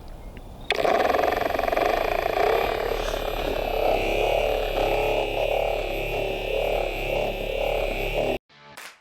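Battery-powered buffer spinning a honeycomb foam pad with polishing compound on car paint: a steady, wavering motor hum that starts abruptly about a second in and stops suddenly near the end. Guitar music begins just before the end.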